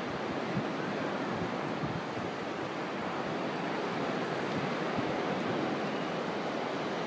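Steady rush of surf on a beach, with wind buffeting the microphone.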